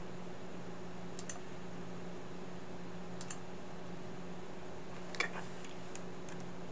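A handful of scattered computer mouse clicks, one or two at a time and a second or two apart, over a faint steady hum.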